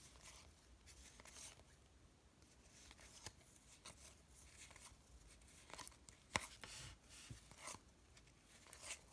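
Faint handling of paper baseball cards being flipped through one by one: soft slides and light clicks of card stock, with one sharper click about six seconds in.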